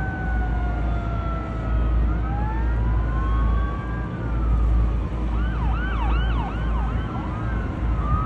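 Several fireboat sirens sounding together over a steady low rumble: long wails sliding down and back up, then a quick yelping siren sweeping up and down about two or three times a second from about five seconds in.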